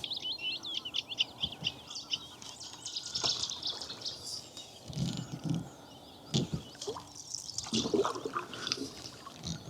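Small songbirds singing a rapid, twittering song, busiest in the first few seconds, over the quiet dribble and swish of a canoe paddle dipping and pulling through calm water, with two fuller paddle strokes about five and eight seconds in.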